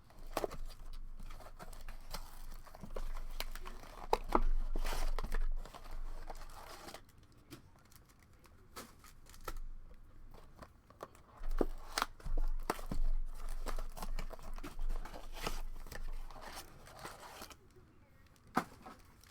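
Trading card packs being torn open by hand: foil wrappers tearing and crinkling in short irregular bursts, with scattered sharp clicks.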